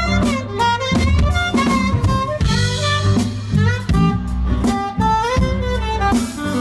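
Saxophone solo in a live band, quick runs of notes sliding up and down over drum kit and bass guitar.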